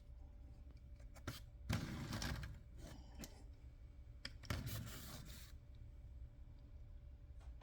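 Handling noise: two short bursts of rubbing and scraping, each about a second long, with a few light clicks between them.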